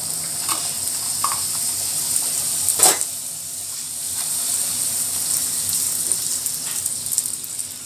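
Poori deep-frying in hot oil in a kadai: a steady sizzling hiss while a slotted spoon presses the poori to puff it up. A sharp click about three seconds in, with a few fainter clicks around it.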